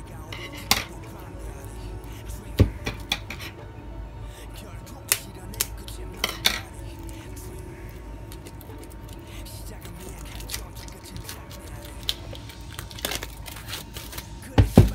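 A cardboard DVD box set being handled and opened: scattered sharp clicks and taps of the packaging, a cluster of louder knocks near the end.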